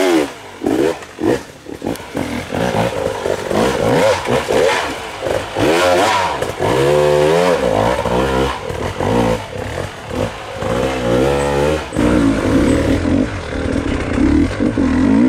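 Off-road dirt bike engine revving up and down in short repeated bursts, with knocks and clatter in between; about twelve seconds in it settles into a steadier note.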